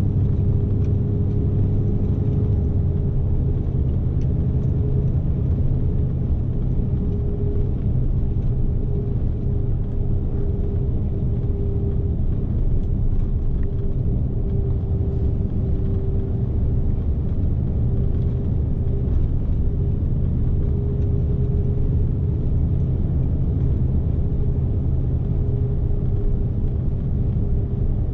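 Scania S520's V8 diesel heard from inside the cab while driving: a steady low drone with a constant hum, mixed with tyre and road noise.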